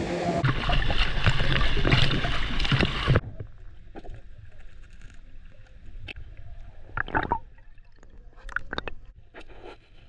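Loud rushing water for about three seconds, cut off suddenly, then quieter water with scattered sloshes and splashes.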